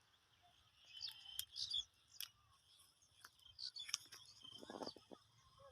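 Faint bird chirps and twitters, with a few sharp clicks and a quick run of taps about five seconds in.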